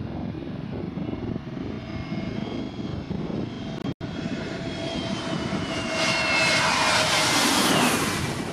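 Airbus A320neo airliner on low final approach, its jet engines running with a rumbling hiss and a whine. The sound grows loud as it passes close overhead, and the whine falls in pitch as it goes by. The sound cuts out for an instant about four seconds in.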